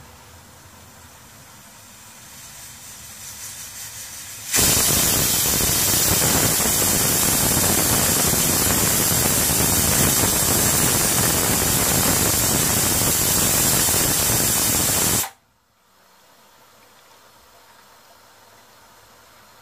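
Aluminium stovetop pressure cooker whistling. Hiss builds for a couple of seconds, then a loud steady jet of steam vents from the weight valve for about ten seconds and cuts off suddenly. It is the cooker's fourth whistle of five.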